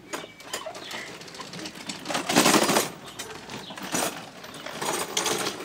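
Pedal go-kart rolling on its rubber tyres over rough asphalt, its frame and drive rattling with many small clicks, loudest about two and a half seconds in.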